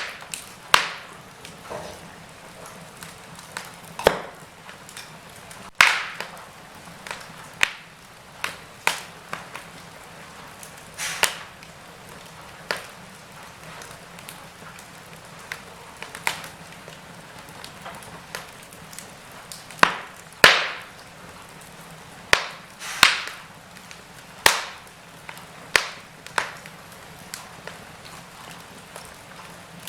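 Wood fire crackling in a fireplace: irregular sharp pops and snaps, several close together a little past the middle, over a soft steady hiss.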